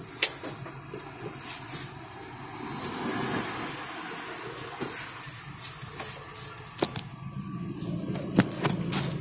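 A vehicle engine idling steadily, heard from inside the cab of a stopped vehicle, with several sharp clicks and knocks at irregular moments.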